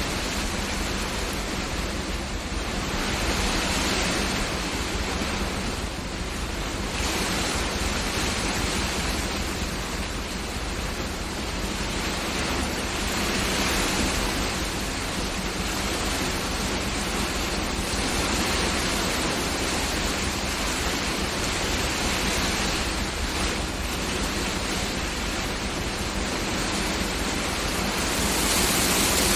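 Heavy rain with hail, driven by wind: a dense, steady rush that swells and eases every few seconds in gusts, growing louder near the end.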